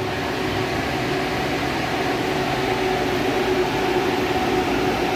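Freezer's refrigeration system running under refrigerant charge: a steady hum from the compressor and condenser fan, with a constant tone over the noise.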